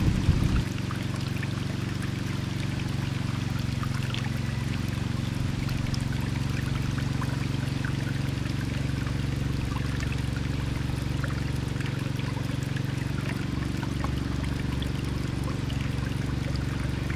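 Steady running, trickling water from a backyard pond, with a brief low rumble in the first half-second.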